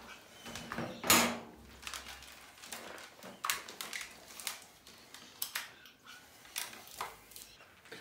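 Scattered handling noises: a series of short clicks, knocks and rustles as cables are moved about at a hole in the wall, the loudest knock about a second in.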